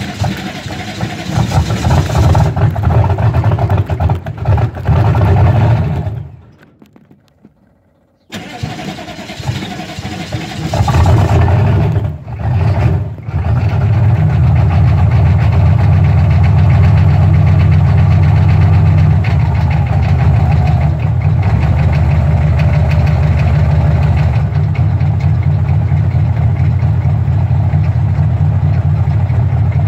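GM 6.2-litre V8 diesel running on a cold start without its block heater, exhausting through a bed-mounted stack. About six seconds in the sound falls away for about two seconds, then the engine comes back in, surges, and settles into steady running.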